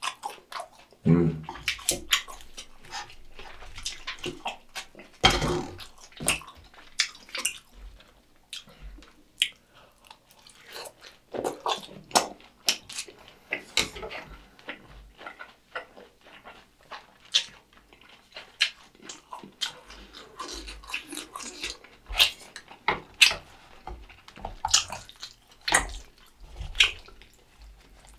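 Close-miked chewing of sweet and sour pork (tangsuyuk): wet mouth smacks and chews with many short, sharp clicks at an irregular pace.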